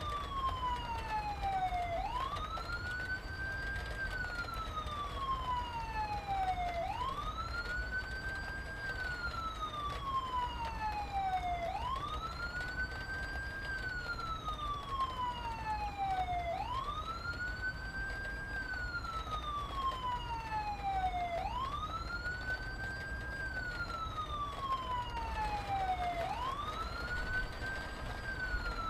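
A wailing siren in a slow repeating cycle: the pitch climbs quickly, then falls away slowly, about once every five seconds. Under it runs a steady low rumble.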